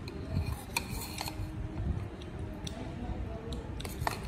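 Metal spoon clinking against a ceramic plate of rice: several short sharp clinks, a cluster about a second in and a couple more near the end, over a low rumble.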